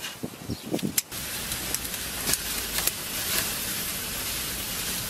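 Metal kitchen shears cutting into a whole roast lamb on a charcoal grill: a string of sharp metallic snips and clicks over a steady hiss.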